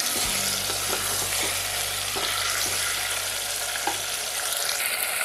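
Sliced radish sizzling in hot oil in a nonstick pot, with a few light knocks of a wooden spatula stirring it, over a low steady hum.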